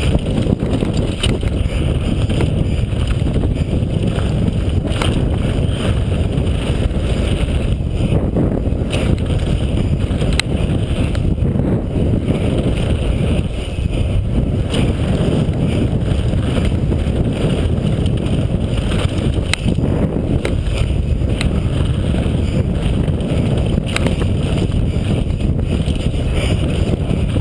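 Steady wind buffeting on a GoPro's microphone, mixed with the rumble and rattle of a downhill mountain bike riding fast over a dirt trail. Sharp clicks and knocks are scattered throughout.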